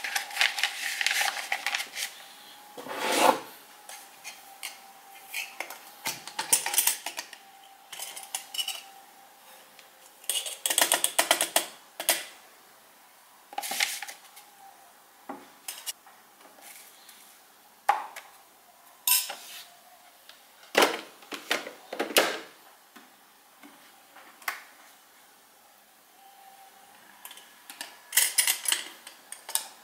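Kitchen handling sounds while filling a drip coffee maker: a paper filter rustling as it is pressed into the basket, then a metal spoon clinking and scraping as ground coffee is scooped from a steel canister and the canister lid is handled. The clinks and clatters come singly and irregularly, with quiet gaps between.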